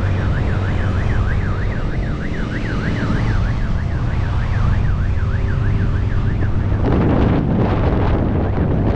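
Emergency-vehicle siren in a fast yelp, its pitch rising and falling about three times a second, over the steady low rumble and wind noise of riding on a motorcycle. The siren stops about seven seconds in, and wind buffeting on the microphone grows louder.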